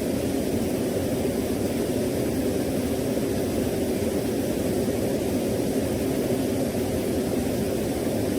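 Steady, unbroken rushing roar of a waterfall-like ambient noise track, heaviest in the low-middle range, with no changes or separate events.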